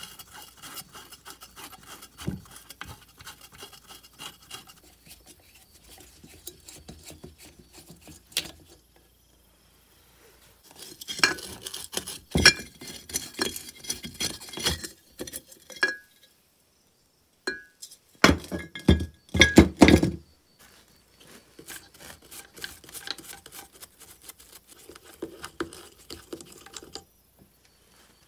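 Rusty metal parts of an old Soviet chainsaw engine clinking, knocking and scraping as they are handled and taken apart by hand. Irregular clicks and clinks come with short pauses, with a busy run of knocks in the middle and the loudest cluster a little after it.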